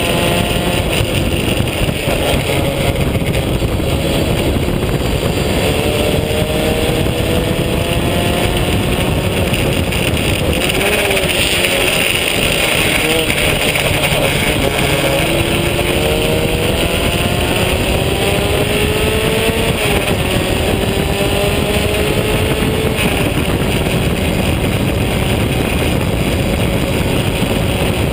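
Vintage open-wheel race car's engine heard onboard at racing speed, climbing slowly in pitch under acceleration and falling back about twenty seconds in, under loud steady wind and road noise on the camera microphone.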